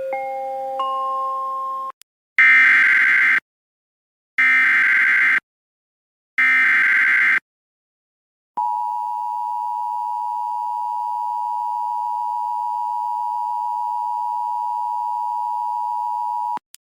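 Emergency Alert System activation: a brief electronic chime of tones stacking into a chord, then the three SAME header data bursts, each a harsh buzz about a second long with a second's gap, then the steady two-tone EAS attention signal for about eight seconds, stopping abruptly. The bursts carry the alert's coded event and area data, and the attention tone announces that a spoken warning follows.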